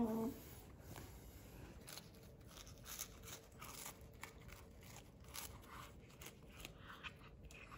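A domestic cat chewing a treat held in a hand: faint, irregular crunches, several a second. A short meow right at the start.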